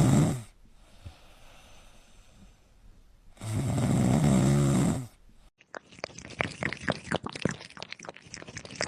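A sleeping pet snoring loudly: two long, rasping snores about four seconds apart. In the last few seconds they give way to a quick run of crackly clicks.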